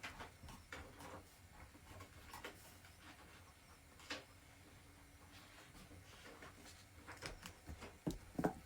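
Faint, scattered clicks and taps of small items being handled, a little busier near the end.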